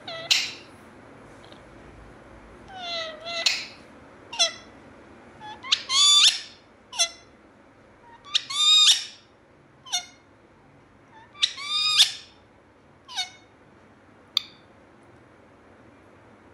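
Rose-ringed parakeet giving a run of loud, sharp calls at uneven intervals, several of them sliding up in pitch.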